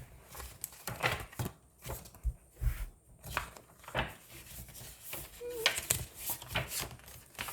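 Paper rustling and light knocks as a book is handled and its pages are turned, with a brief faint voice sound about five and a half seconds in.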